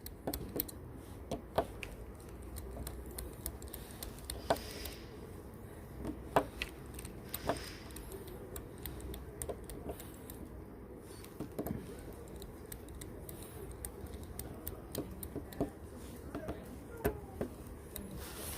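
Small, irregular clicks and taps of a precision screwdriver and tiny screws as the screws around a smartphone's frame are taken out, with a few louder taps.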